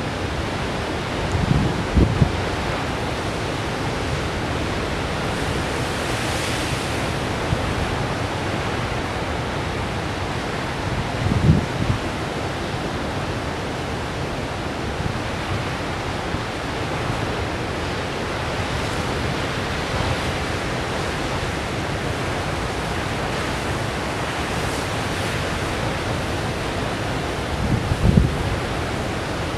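Large ocean surf breaking, a steady rush of white water, with three brief low thumps: about two seconds in, about a third of the way through, and near the end.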